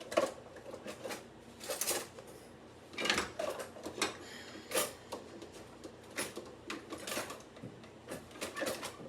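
Rummaging in a kitchen drawer for a knife and spoon: irregular clatters of cutlery and knocks of the drawer, some of them sharp clicks.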